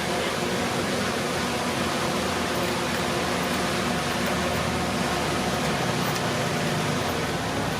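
Komatsu D31P bulldozer's diesel engine running steadily, a constant drone with a broad wash of noise over it.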